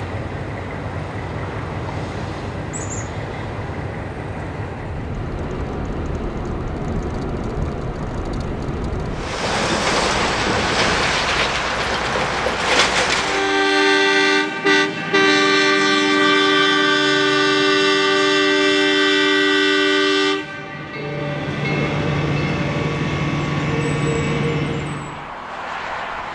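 Horn of an Iowa Traction steeple-cab electric locomotive: two short blasts, then a long held chord of about five seconds that cuts off sharply. It comes over the rumble of the passing train and traffic.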